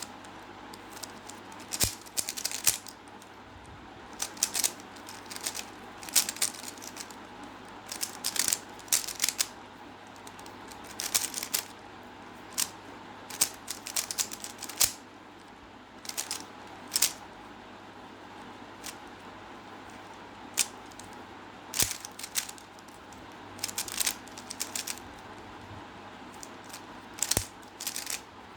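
Plastic 3x3 Rubik's cube being turned quickly in the hands during a solve: flurries of clicking, clacking layer turns with short pauses between them.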